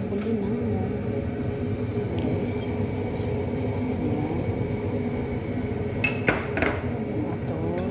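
Two sharp kitchenware clinks about six seconds in, over a steady background murmur.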